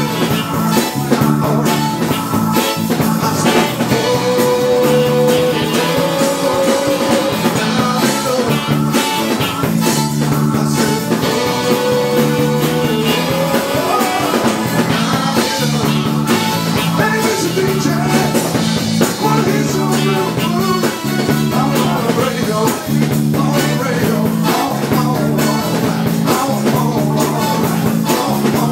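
Live dance band playing an upbeat rock number: electric guitar over a repeating bass line and drums.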